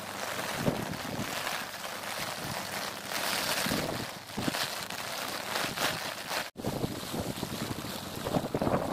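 Wind buffeting the microphone in gusts over a steady hiss of heavy rain falling on open water. The sound drops out for an instant about two-thirds of the way through.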